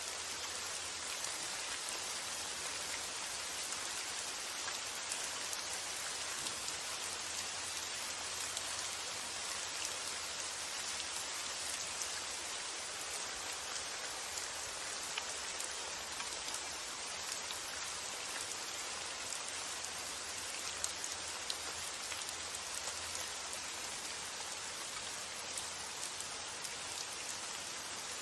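Steady rain falling: an even hiss with many scattered, slightly louder drop ticks.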